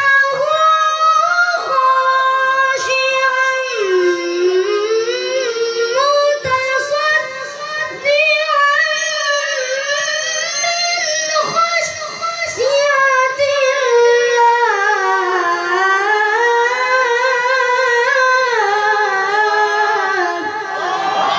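A high, clear voice reciting the Quran in melodic tilawah style, holding long notes and sliding through ornamented turns between them.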